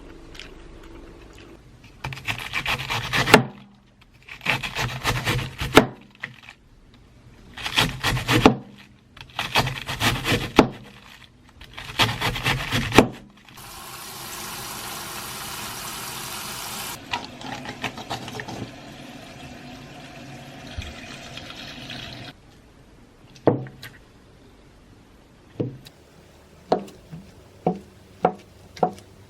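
Kitchen food preparation: five rasping knife strokes through food on a wooden cutting board, a few seconds of steady hiss, then a string of sharp knife chops on the board.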